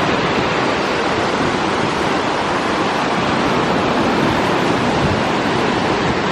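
Lake Michigan water rushing and surging at the shore, a loud steady rush without breaks.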